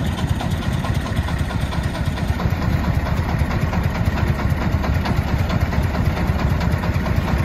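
Engines idling steadily with a low, pulsing rumble: a diesel công nông three-wheeled dump truck and a forklift that is lifting a pallet of concrete blocks up to its bed.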